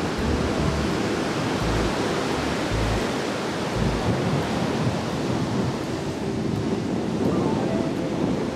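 Strong wind buffeting the microphone over the steady rush of surf breaking on the beach, with heavy low gusts in the first few seconds.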